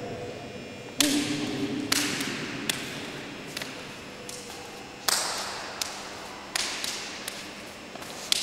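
Hands and forearms slapping together in a cadena de mano parry-and-strike drill: a series of sharp slaps, about one a second, each with a short echo.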